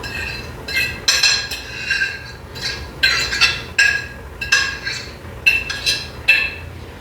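A utensil clinking against a metal cooking pot about a dozen times at an uneven pace, each strike ringing briefly: scallions being knocked into and stirred through a pot of chicken and rice.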